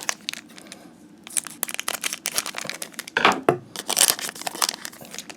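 Foil booster pack wrapper crinkling, with trading cards being handled in a run of short clicks and snaps. The louder crinkles come about three and four seconds in.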